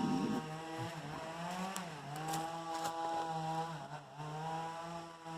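Two-stroke chainsaw engine running at a steady speed, its pitch dipping briefly a few times, with a few faint clicks.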